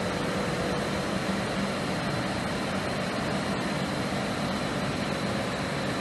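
R744 (CO2) air conditioning of a Volkswagen Group electric car running at maximum cooling: a steady, even whirring rush as the electric compressor sucks the service hose dry and pulls the suction pressure down.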